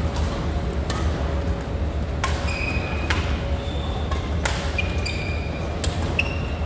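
Badminton rally: sharp cracks of rackets striking the shuttlecock about once a second, with short squeaks of shoes on the court floor. A steady low hum runs underneath.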